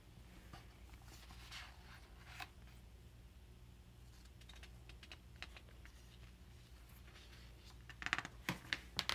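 Faint rustling and light clicks of paper and cardboard being handled, over a steady low hum, with a burst of sharper rustles and clicks near the end.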